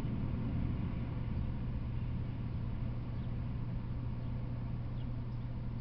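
A steady low hum over an even background rumble, easing off slightly, with a few faint short chirps near the end.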